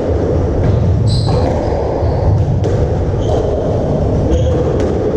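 Squash rally: the ball knocking sharply off rackets and the court walls every second or so, with short high squeaks of court shoes on the wooden floor, over a steady low hum.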